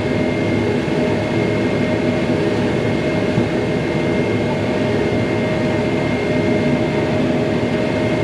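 Tractor engine running steadily, heard from inside the cab, with a constant hum and a thin high whine over it.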